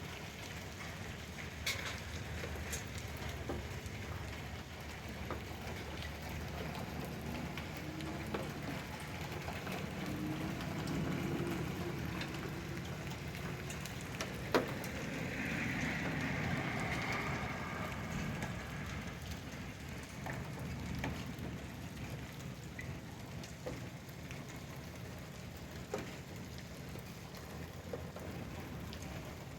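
A hailstorm's downpour of rain and hail falling steadily, with a few sharp knocks of stones striking hard surfaces.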